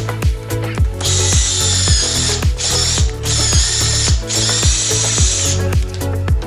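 Background music with a steady kick-drum beat, about two beats a second. Over it, from about a second in, a high-pitched mechanical ratcheting buzz from a tool at work, breaking off briefly twice and stopping about a second before the end.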